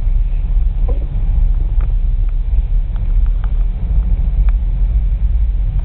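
Steady low rumble inside a moving car's cabin, from the engine and the tyres on the snowy road, with a few faint light ticks.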